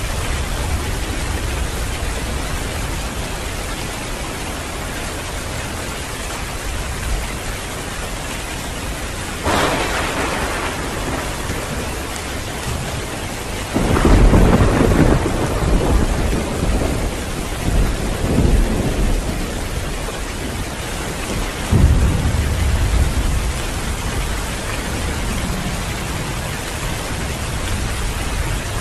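Heavy rain falling steadily with thunder. A short crack comes about a third of the way in, then a loud deep rolling rumble about halfway that swells again twice, and another clap about three-quarters through.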